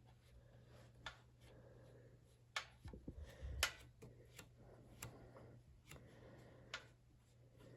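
Faint clicks and taps of a fuel line fitting being loosened and worked off a motorcycle carburetor by hand and tool: a handful of sharp single clicks spread out, with a short cluster of knocks about three and a half seconds in. A faint low hum runs underneath.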